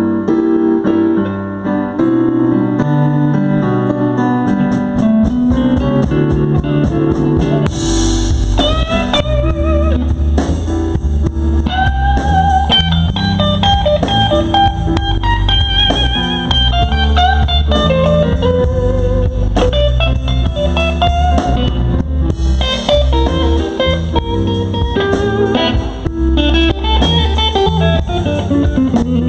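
Slow electric blues played by a band: a sparse chordal opening, then drums and bass come in about eight seconds in under an electric lead guitar playing bent notes with wide vibrato.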